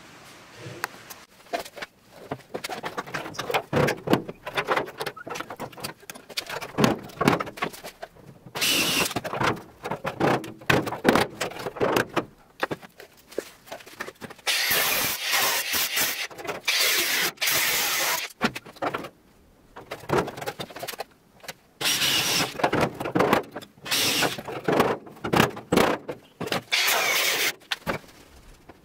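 Cordless angle grinder cutting through the rusted sheet steel of a car's rear wheel arch, running in spells of a few seconds with a high-pitched squealing grind. Between the spells come irregular sharp metal knocks and clatter.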